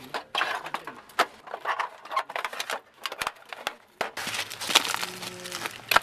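Light metallic clinks and knocks as the thin blackened steel plates of a folding brazier are handled. About four seconds in, sharp cracks of dry sticks being picked up and snapped.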